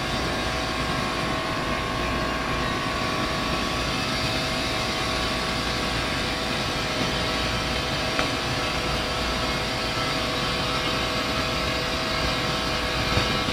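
Steady rushing noise of industrial plant machinery, with a faint steady hum running through it.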